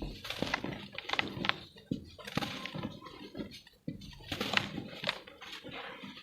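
Lumps of pure cement being crumbled and broken: irregular crunches with many sharp crackles and snaps.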